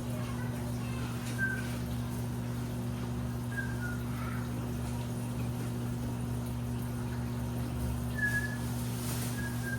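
Washing machine running with a steady low hum and rumble. A few short, faint high chirps come and go over it.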